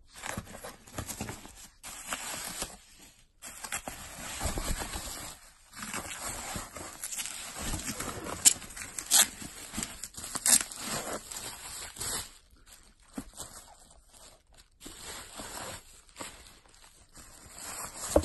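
Bubble wrap rustling and crinkling as hands unwrap a parcel in a cardboard box, in uneven handfuls with short pauses, with a few sharp crackles a little past the middle.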